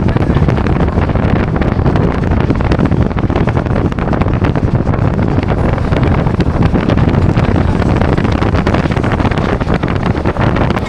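Wind buffeting the microphone: a loud, steady rumble that flutters without pause.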